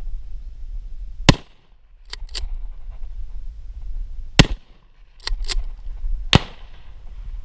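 Three shotgun shots, about three seconds and then two seconds apart. After each of the first two comes a pair of quick clacks as the action is worked to chamber the next shell.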